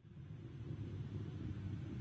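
Distant Soyuz rocket engines heard from the ground: a low, steady rumble that fades in over the first second.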